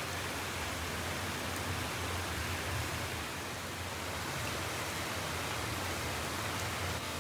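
Steady rain falling on a garden hedge and a paved path: an even hiss with a low steady rumble underneath.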